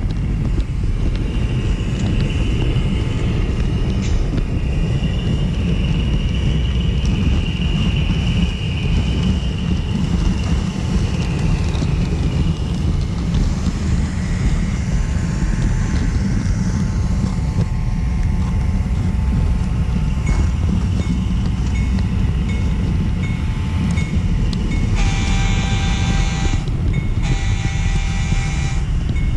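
Steady rumble of a model train running along its track, picked up by a camera riding on the train, with a high wavering squeal over it for about ten seconds in the first half. Near the end the model locomotive sounds its horn three times, the last blast short.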